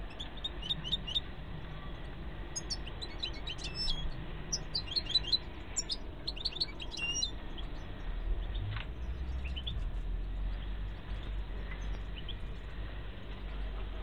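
European goldfinches calling: clusters of short, quick chirps and twitters, busiest in the first half and thinning to a few scattered faint calls later, over a steady low hum.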